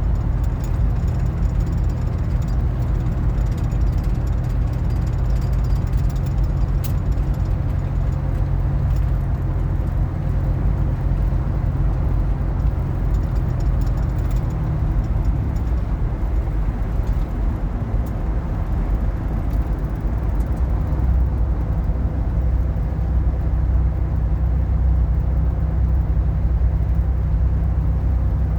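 Car engine and road noise: a steady low rumble whose pitch shifts about halfway through.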